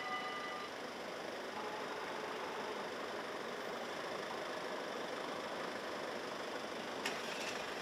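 Steady traffic and street noise with engines idling at a railway level crossing as the barriers lift after a train has passed. A faint high ringing tone dies away in the first moment, and a short sharp click comes about seven seconds in.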